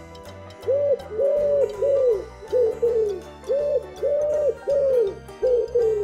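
Battery-operated toy pigeon giving electronic cooing hoots: about eleven short, loud coos in quick pairs and threes, over background music.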